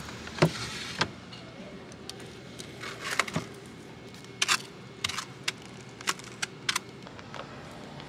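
Scattered sharp clicks and knocks from handling a plastic cup of ice and a glass-lidded convenience-store freezer, over a steady low hum.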